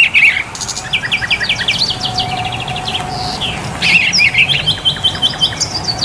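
A songbird singing in rapid phrases of short, high chirps and trills, two runs of quick repeated notes separated by a brief pause.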